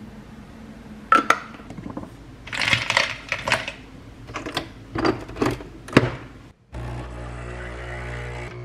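Clicks and rattles of coffee capsules being handled and loaded into a capsule coffee machine, then the machine's pump starts about seven seconds in and runs with a steady hum as it brews.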